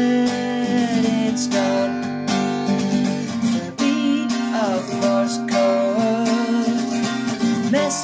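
Acoustic guitar strummed in a steady rhythm, with a man's voice holding a long sung note at the start and singing on over the chords.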